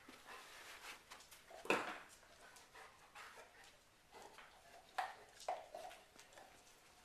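Golden retrievers making short dog sounds with a faint whine in them. The loudest comes a little under two seconds in, and two more come around five seconds in.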